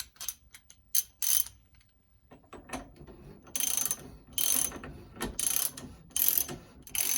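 Socket ratchet clicking in a series of short strokes, about one a second, as it runs a motorcycle fork's 24 mm top cap nut down its fine threads. A few loose light clicks and knocks come first.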